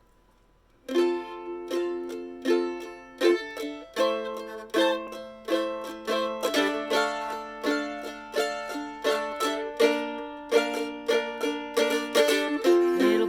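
Acoustic mandolin playing a folk song's instrumental introduction, a steady run of picked and strummed chords that starts about a second in.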